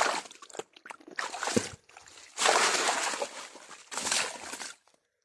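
Water sloshing and splashing in four bursts as an eel trap is hauled out of the water and shaken, cutting off suddenly near the end.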